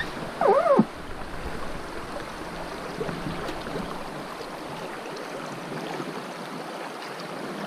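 River water rushing steadily past an inflatable PVC boat drifting through shallows, with a brief pitched sound about half a second in.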